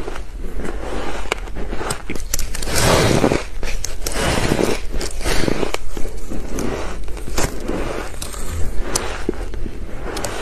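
Close-miked biting and chewing of soft, powdery ice: an irregular run of crunches, densest and loudest a few seconds in.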